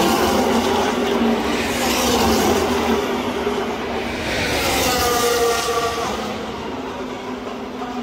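Formula 1 cars with 1.6-litre turbocharged V6 hybrid engines racing past one after another. The engine note rises in pitch as a car accelerates by about halfway through.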